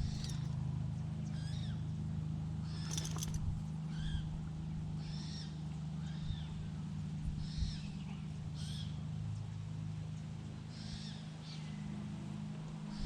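Bird calls: short high calls that rise and fall, repeating about once a second with a brief gap past the middle, over a steady low hum.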